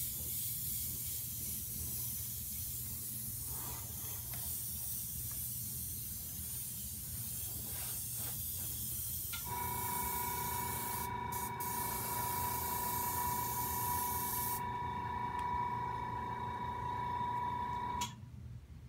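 Iwata airbrush spraying paint: a steady hiss of compressed air. About halfway in, a steady pitched whine joins the hiss. The hiss stops a few seconds later, and the whine cuts off suddenly near the end.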